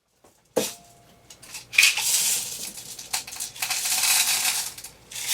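Beads rattling into empty plastic medicine bottles as they are filled to make shakers: a sharp click about half a second in, then two spells of rattling about a second each.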